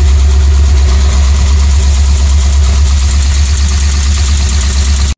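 Aluminum-block LS6 5.7 L V8 with forged internals idling steadily with a fast mechanical clatter, the noise that long-time LS builders put down to the aluminum block and forged parts, carried by the headers.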